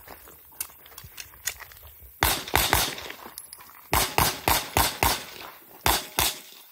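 Pistol shots from a USPSA Limited Optics competition handgun fired in fast strings at targets: three or four about two seconds in, a run of five between about four and five seconds, and a pair near the end.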